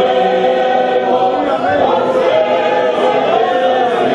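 Church choir singing, many voices together on held notes.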